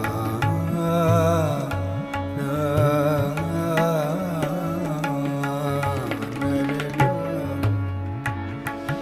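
Indian-style background music: a melody line wavering in pitch over a low repeating bass, with regular hand-drum strokes.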